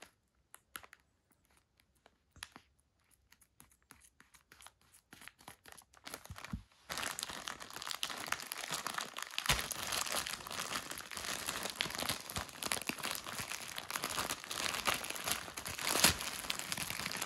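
Plastic courier mailer bag being handled and torn open: only a few faint rustles at first, then from about seven seconds in continuous crinkling and tearing of the plastic, with a brief louder crackle near the end.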